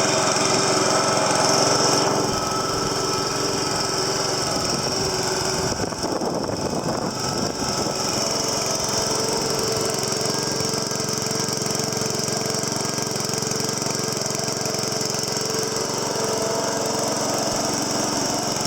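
Honda Harmony HRM215 lawn mower's GCV140 overhead-valve engine running steadily just after starting, warming up with the blade not yet engaged. It gets a little quieter about two seconds in and otherwise holds even.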